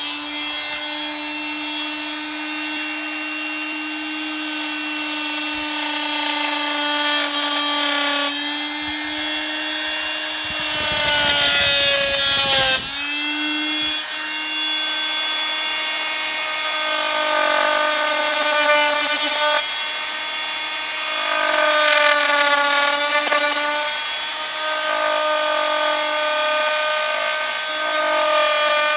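Oscillating multi-tool running with a steady high-pitched whine as its plunge-cut blade cuts into a wooden door jamb. About ten seconds in the pitch sags with a rougher buzz as the blade loads up in the wood, then it briefly dips and picks back up to a steady whine.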